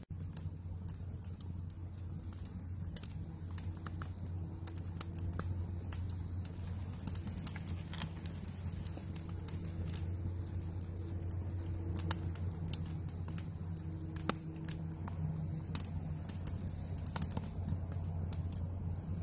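Wood campfire crackling: frequent sharp pops and snaps over a steady low rumble.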